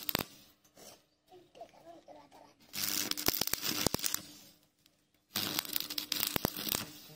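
Stick (arc) welding arc crackling as the electrode is struck and broken in short dabs, filling a gap in thin-walled steel tube bit by bit. Two bursts of crackle, each about a second and a half long: one about three seconds in, one about five seconds in, with quiet between.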